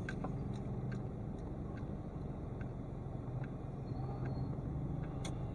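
Steady low rumble of a car at standstill in traffic, heard from inside the cabin through a dashcam microphone, with a few faint clicks.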